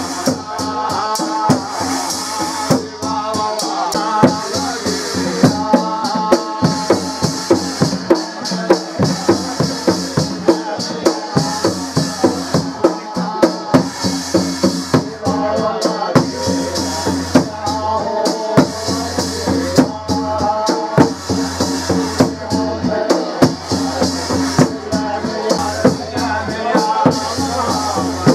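Traditional Himachali devotional song to Shiva: voices singing over a drum and a jingling, rattle-like percussion keeping a steady beat of about two strokes a second.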